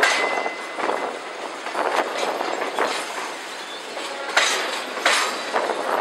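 Freight train cars rolling past close by, their wheels clattering over the rail joints in repeated, irregular strokes, with a short high wheel squeal at the start.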